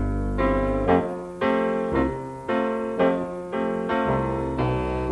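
Background music: a light keyboard tune over bass notes, with a new note or chord about twice a second.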